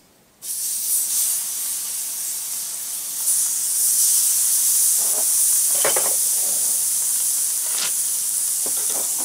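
Rub-coated chicken breasts sizzling on hot grill grates. The sizzle starts about half a second in and gets louder about three seconds in.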